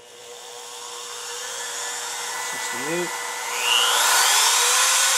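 Bauer trim router's brushed motor running free with no cut, at its lowest speed setting with a steady whine. About three and a half seconds in, the speed dial is turned up: the whine rises in pitch and gets much louder as the router reaches maximum speed.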